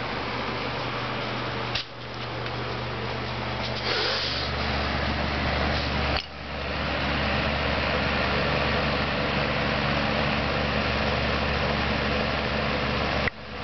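Refrigeration condensing unit of a Vendo 110 soda machine running: a steady electric hum from the hermetic compressor under an even rush of air from the condenser fan.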